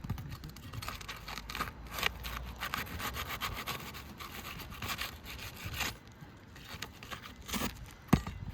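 Irregular scraping and rubbing as asphalt roof shingles are handled and pulled loose, with a sharp knock near the end.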